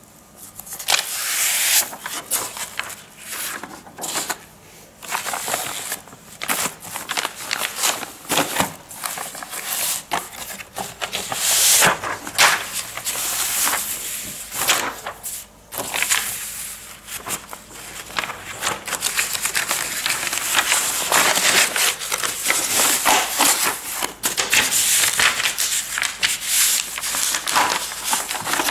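Paper and plastic rustling and crinkling as a cellophane-wrapped pack of kraft paper envelopes, sheets of A4 paper and a large B4 kraft envelope are handled, in irregular loud crackles; near the end the pack slides into the envelope.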